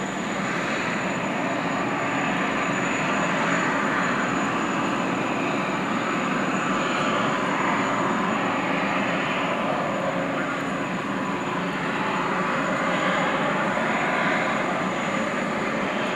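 Boeing Jetfoil 929-115 hydrofoil ferry running foilborne at speed, its gas turbines and waterjets making a steady rushing jet noise with a thin high whine, swelling slightly as it passes.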